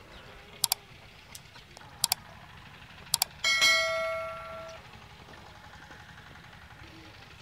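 Subscribe-button overlay sound effect: three quick double mouse clicks about a second apart, then a notification bell ding that rings and fades over about a second.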